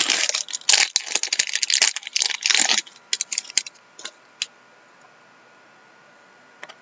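Foil wrapper of a hockey card pack being torn open and crinkled for about three seconds, followed by a few light clicks as the cards are handled, then quiet.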